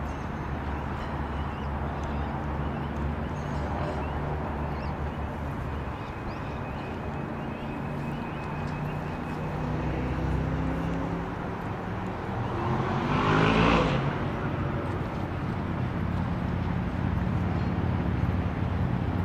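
A road vehicle passing by: it builds up, is loudest about two-thirds of the way through, then fades. Under it runs a steady low engine hum.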